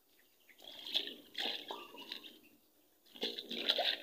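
Shallow water splashing and gurgling around a sandbag as it is shifted and pressed into place in a concrete channel, in three short bursts.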